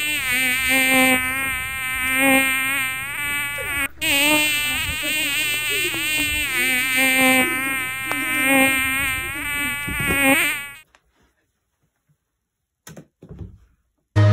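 A boy's long, wavering wail, rising and falling in pitch over and over, cutting off abruptly about eleven seconds in. Silence follows, broken by a brief faint sound near the end.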